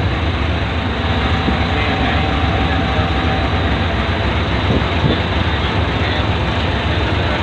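Diesel-electric locomotive engine running steadily, a loud, even, deep sound with a faint steady whine over it for a few seconds.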